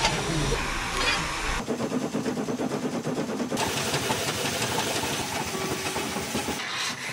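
Vertical-boiler cogwheel steam locomotive hissing steam and running with a fast mechanical clatter. The sound changes abruptly a few times, as from separate cut-together shots.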